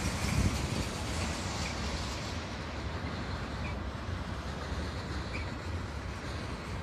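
Mixed freight train's cars rolling past on the rails: a steady rumble of wheels over the track, louder for a moment about half a second in, with a few faint short squeals from the wheels.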